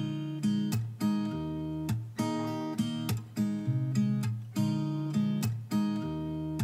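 Background music: acoustic guitar strummed in a steady rhythm, with chords changing every few strokes.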